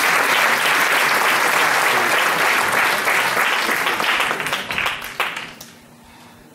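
Theatre audience applauding, the clapping dying away about five seconds in, with a single knock as it fades.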